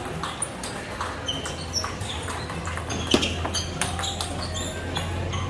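Table tennis balls clicking off bats and tables at irregular intervals, the sharpest click about three seconds in, with short high squeaks and a steady low hum underneath.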